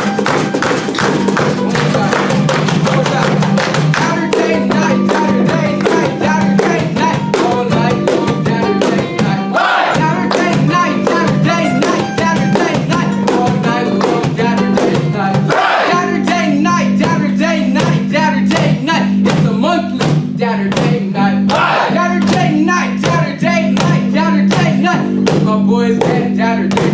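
Live band playing a guitar-led song over a steady drumbeat and a held low note.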